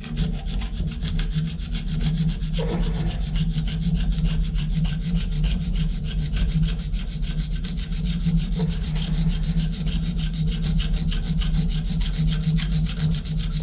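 Reciprocating saw running steadily, its blade cutting through a stuck metal bonnet nut on a shower valve with a continuous rasping sound.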